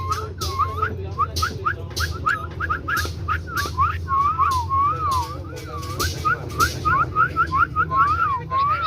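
A pet talking bird whistling a quick run of short rising and arching notes, about three a second, with sharp clicks between them.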